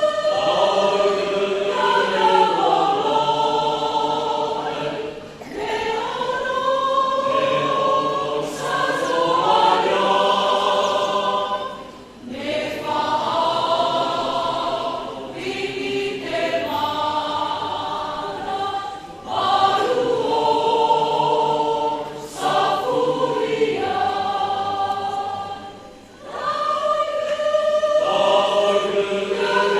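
A church choir of pastors singing a hymn in several voices, in sung phrases broken by brief pauses every few seconds.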